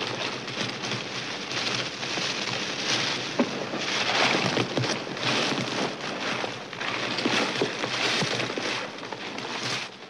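Glossy gift-wrapping paper on wrapped presents rustling and crinkling as hands handle and shift the boxes, a dense crackle.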